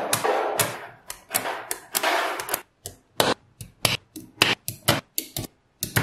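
Small metal magnetic balls clicking and snapping together as they are rolled and pressed into shape by hand: at first a dense crackling rattle, then separate sharp clicks with short gaps between them.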